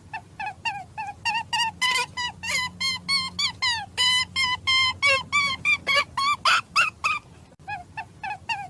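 A rapid series of short, chirping animal calls, each bending in pitch, about three or four a second, over a low steady hum.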